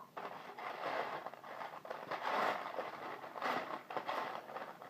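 Loose plastic Lego pieces being rummaged through by hand, a continuous clattering scrape with many small clicks as the pieces are searched for.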